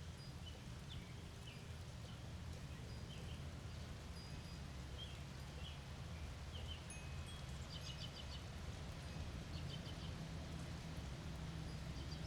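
Birds chirping intermittently over a steady low rumble of storm ambience, with a couple of brief clusters of high tinkling clicks.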